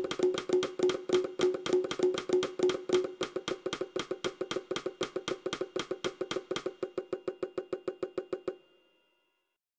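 A polyrhythm of layered percussion clicks, several pulses ticking at different rates at once. The layers drop out one by one, so the ticking grows sparser, and it stops about a second and a half before the end.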